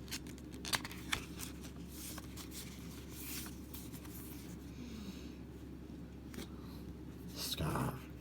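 Quiet handling of board-game cards and cardboard components: light rustling and a couple of sharp clicks or taps about a second in, over a steady low room hum.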